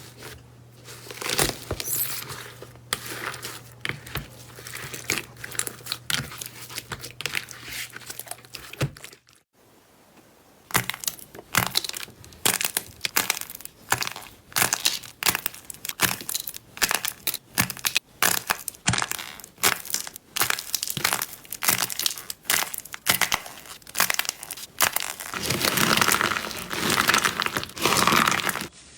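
Slime being squeezed and pressed by hand, giving a dense run of small crackles and pops. About a third of the way in there is a brief drop-out, after which a second clip carries on with sharper, louder crackling.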